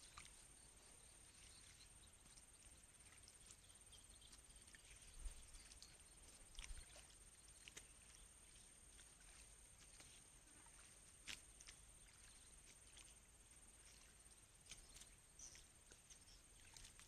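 Near silence: faint rustles and a few small clicks and splashes as floating water plants are pulled and poked aside, over a steady high-pitched whine.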